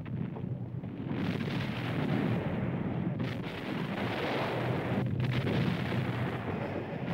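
Continuous rumbling roar of bombardment, with the explosions running together rather than standing apart; it swells and grows fuller about a second in.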